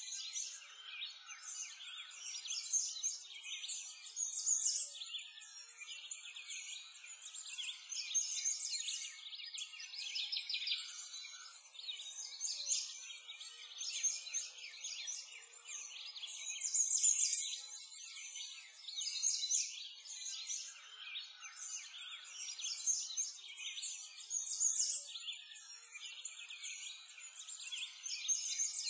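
Dense, unbroken birdsong: many small birds chirping and twittering at once, high-pitched throughout.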